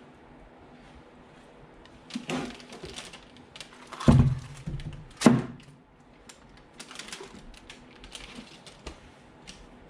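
Three heavy clunks, the second the loudest, then a run of lighter clicks and taps: parts of an opened manual transmission being handled and set down.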